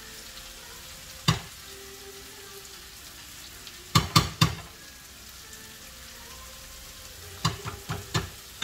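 Turkey neck and potato pieces frying in a pan with a steady low sizzle. Over it come sharp clicks as a seasoning shaker and its plastic lid are handled: one about a second in, a quick run of three or four in the middle, and four or five more near the end.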